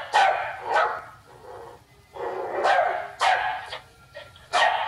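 Dog barking repeatedly, with sharp barks coming in quick groups of two or three.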